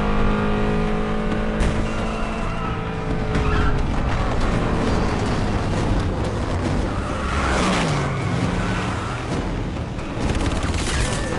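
Film car-chase sound mix: vehicle engines revving hard at speed with tyres skidding, and about halfway through a vehicle passes with its engine note falling.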